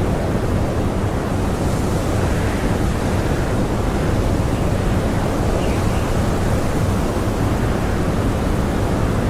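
Blizzard wind blowing steadily and strongly, a dense rushing noise with a deep low rumble.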